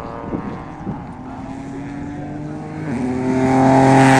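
Rally car engine held at high revs as the car approaches, slowly climbing in pitch, with a short dip in pitch about three seconds in. It then gets much louder as the car passes close by near the end.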